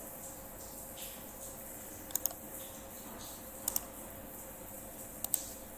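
Three quick double clicks, about a second and a half apart, from working a computer's mouse and keyboard while copying and pasting text. Under them runs a faint steady hiss with a low hum.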